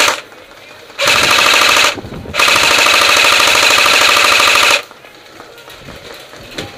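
Airsoft electric gun firing full-auto in two bursts, a short one about a second in and then a longer one of about two and a half seconds, rapid clicking over a steady gearbox whine.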